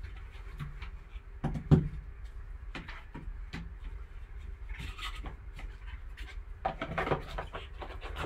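Gloved hands handling a cardboard trading-card box and its foam insert: scattered taps, knocks and rubbing, with one sharp knock just under two seconds in and a short rustle of handling about five seconds in, over a low steady hum.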